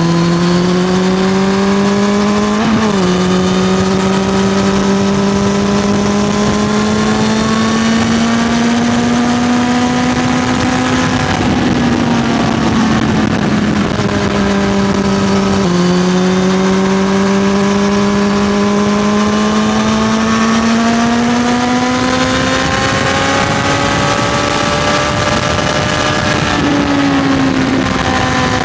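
Kawasaki Z900's inline-four engine through an SC-Project CRT exhaust, running loudly under way. Its pitch climbs slowly, drops sharply about three seconds in, turns rougher for a few seconds in the middle, then climbs again and steps down near the end.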